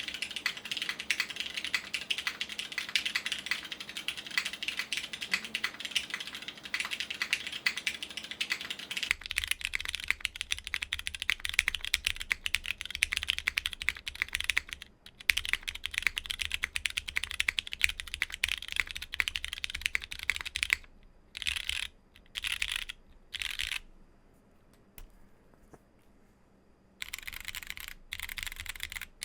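Fast, continuous typing on a plateless custom mechanical keyboard with Cherry MX Brown tactile switches and GMK Lux keycaps, a dense run of keystroke clacks. Toward the end the typing breaks into a few short bursts, stops for a few seconds, then picks up again.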